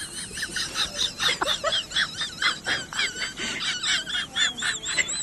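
Rapid, high-pitched animal squeaks, many a second and overlapping at times, each rising and falling in pitch.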